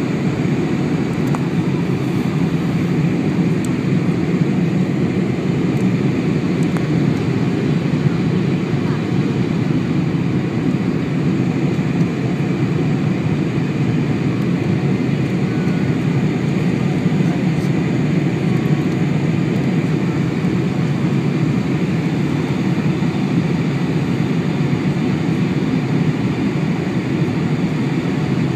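Steady cabin noise of a Boeing 747 on landing approach with flaps extended: engines and rushing airflow heard from inside the cabin as a low, even rumble.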